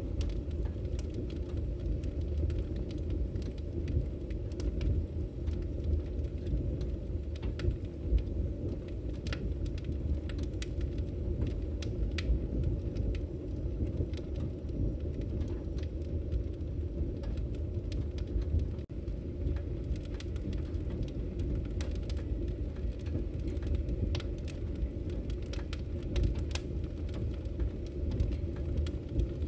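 Wood fire burning in a fireplace: a steady low rumble of flames with scattered sharp crackles and pops throughout.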